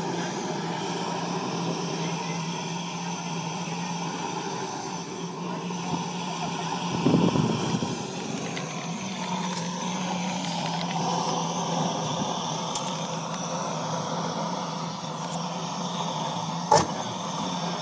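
Vintage kerosene tractor engine running steadily, with a brief louder burst about seven seconds in and a single sharp click near the end.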